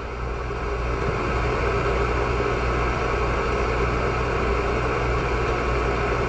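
Steady low machine hum from pool heat pump equipment, waiting through its start-up delay before the compressor kicks on; the hum grows a little louder in the first second or so, then holds even.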